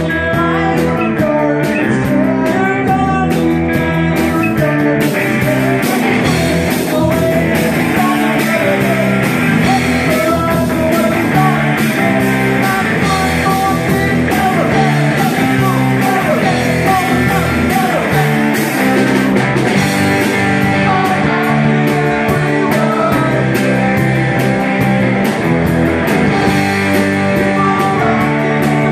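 A live rock band playing: electric guitars over a steady drum-kit beat, with a voice singing.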